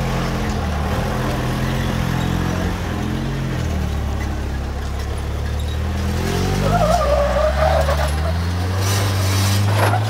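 Toyota Hilux pickup's engine revving under load as it climbs steep slickrock, its pitch stepping up and down. A higher, wavering squeal from the tires on the rock comes in about six and a half seconds in and lasts a little over a second.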